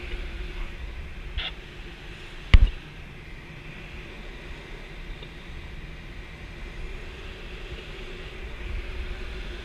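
Steady rush of airflow in the cockpit of an ASK 13 glider in flight, a hiss over a low rumble. A single sharp knock about two and a half seconds in is the loudest sound.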